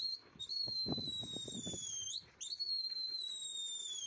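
A person whistling high and loud, twice in a row, each whistle rising sharply and then sliding slowly down in pitch for about a second and a half. These are a pigeon flyer's whistle signals to a flock as it is being turned in the sky.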